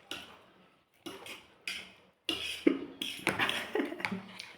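Eating at the table: utensils clinking and scraping against dishes, with eating noises, in a string of short, sudden sounds that come closer together in the second half.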